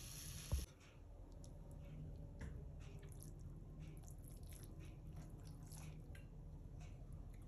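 Faint scraping and squishing of thick, soft egg halwa being pushed off a nonstick kadai into a ceramic bowl with a spatula, with scattered light taps. A dull thump comes about half a second in, and a steady hiss stops suddenly just after it.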